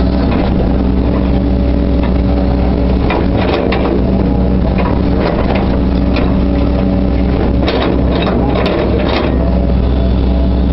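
Hitachi Zaxis 130LCN excavator's diesel engine running steadily while it digs and swings soil, with scattered knocks and clanks from the bucket and hydraulics.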